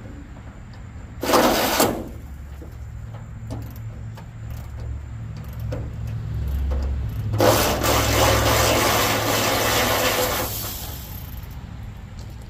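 Cordless power tool spinning a socket on a car's hood hinge bolts, loosening them. It runs in two bursts: a short one about a second in, then a longer one of about three seconds that trails off.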